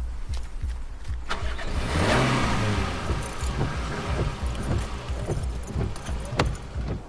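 A car, its noise swelling about two seconds in and then easing off, with a steady low rumble underneath. There are two sharp knocks, one just over a second in and one about six seconds in.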